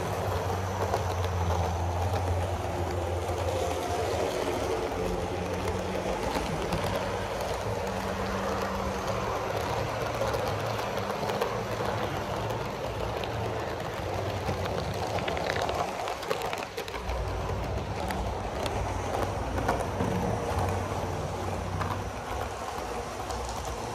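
HO-scale model train running past on its track: a steady motor hum with many small clicks of the wheels over the rails.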